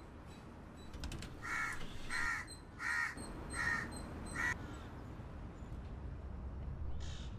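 Crow cawing five times in a steady series, the calls about 0.7 seconds apart.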